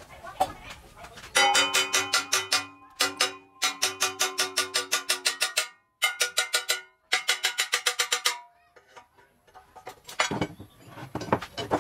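Hammer striking a steel lathe-bed bar in quick runs of ringing metallic blows, about five a second, in three bursts with short pauses between them. A few duller knocks follow near the end.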